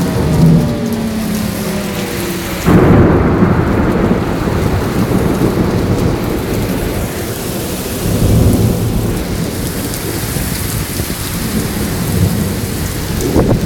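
Heavy rain and gusting wind of a severe thunderstorm. A sudden loud rumbling surge comes about two and a half seconds in, and another rumble around eight seconds.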